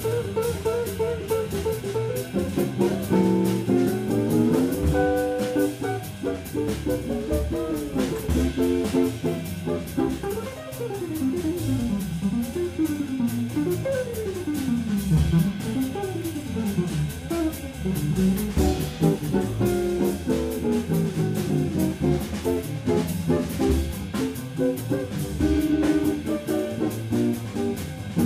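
Live jazz guitar solo on a hollow-body archtop electric guitar, fast single-note lines running up and down, over double bass and drum kit.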